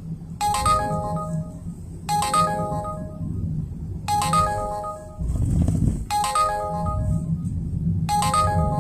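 An electronic ringtone-like chime: a short multi-note melody that repeats about every two seconds, five times. Beneath it runs the steady road and engine rumble of a moving car's cabin.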